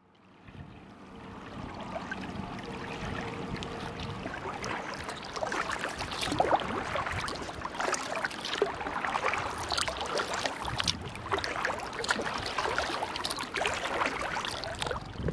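River water splashing and lapping around a moving kayak in a continuous, irregular patter, fading in over the first couple of seconds.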